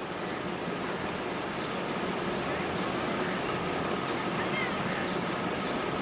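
Steady outdoor background noise, an even rushing wash, with a few faint short chirps about four to five seconds in.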